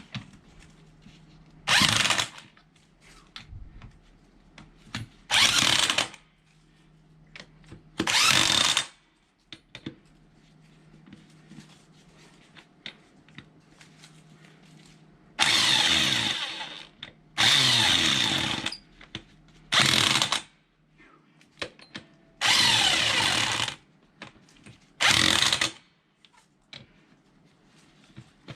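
Cordless power tool run in eight short bursts of about half a second to a second and a half each, spinning in a tractor wheel's lug bolts.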